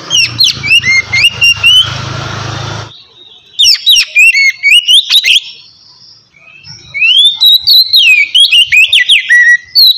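Oriental magpie-robin (kacer) singing loud 'ngeplong' song: three phrases of rapid whistled notes, upward sweeps and trills with short pauses between them. A steady noise with a low hum runs under the first phrase and stops abruptly about three seconds in.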